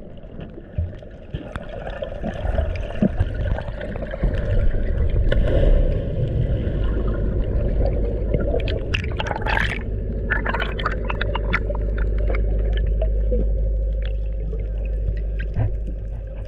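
Muffled underwater sound through an action camera's waterproof housing: a steady low rumble, with a burst of bubbles crackling about nine to eleven seconds in as the swimmer breathes out.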